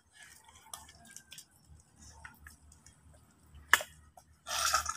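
Hands digging in soft wet mud: scattered small wet squelches and drips, a sharp click a little under four seconds in, and a louder wet squelch near the end.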